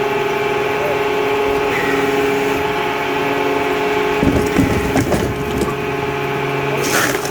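Automatic firewood processor running with a steady mechanical hum, while logs are cut and split: a stretch of knocking and cracking wood about four seconds in, and a sharp crack near the end.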